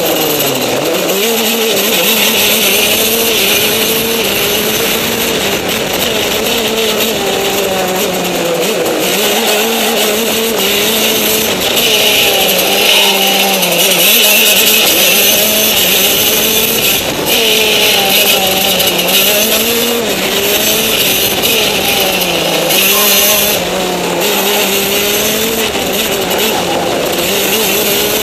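Racing kart engine heard from on board, revving up and down as the kart laps, its pitch rising and falling every few seconds, with a steady hiss over it.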